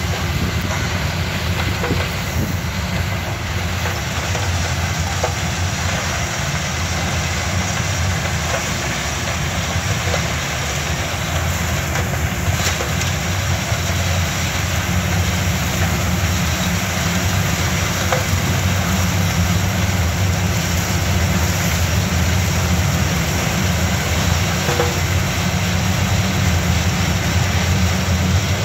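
Yanmar HS2000 sugarcane harvester's 187 hp engine running under load while its cutters and chopper work through cane, a steady, dense mechanical din that grows a little louder as the machine draws nearer.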